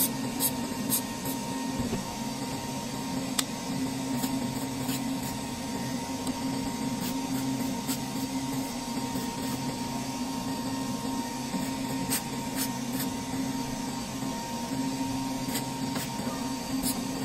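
A steady low machine hum with a thin high whine over it that stops about ten seconds in, and a few light clicks.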